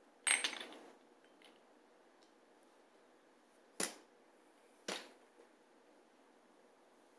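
Glass perfume bottles being set down into a wicker basket, clinking against the other bottles: one ringing clink about a third of a second in, then two short sharp knocks at around four and five seconds.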